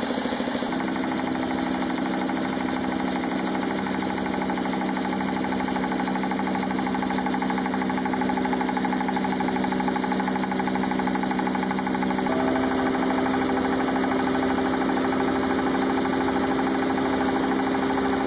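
Small stationary engine running steadily, driving a posho mill that grinds grain into flour. The sound changes abruptly about a second in and again after about twelve seconds.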